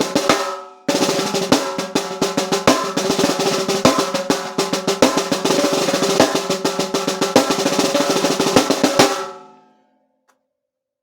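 A 10-inch mulberry wood piccolo popcorn snare drum, tuned high, played in fast strokes and rolls with a clear pitched ring under them. The playing stops briefly less than a second in, then resumes and runs until about nine seconds, when the last stroke rings out.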